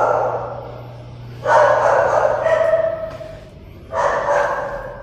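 A dog howling in long, drawn-out cries, one after another, each held for a second or two. A new howl starts about one and a half seconds in and another near the end.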